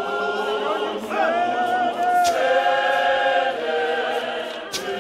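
Church congregation singing a hymn unaccompanied in choral harmony, many voices holding long notes with a slight waver.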